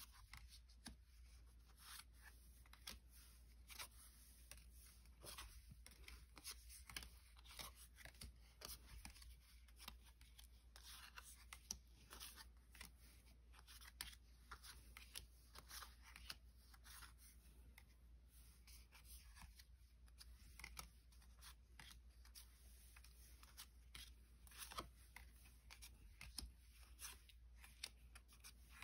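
Faint, closely spaced rustles, light clicks and scrapes of Pokémon trading cards being handled.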